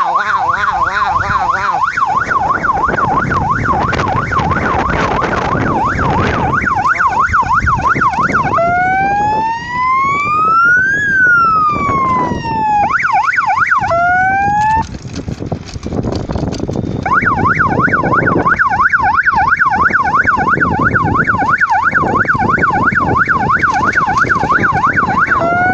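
Three-tone police-style electronic siren fitted to an electric bicycle, sounding a fast warbling yelp. About a third of the way in it switches to a slow wail that rises and falls, then gives a few quick rising sweeps. After a break of about two seconds it returns to the fast yelp, with a steady rushing noise underneath.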